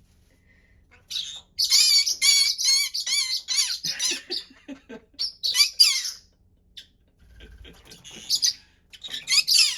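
Green-cheeked conure calling very noisily: runs of rapid, wavering high-pitched squawks starting about a second in, a pause, then another burst near the end.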